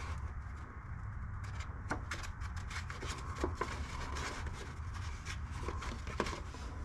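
Scattered light clicks, taps and rustles of small objects being handled, over a steady low background hum.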